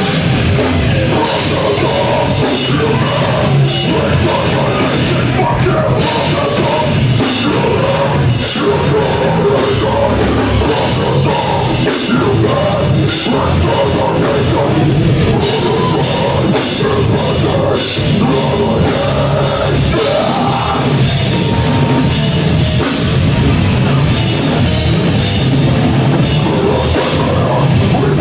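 Heavy metal band playing live, loud and dense: distorted guitars, bass and fast, hard-hit drums.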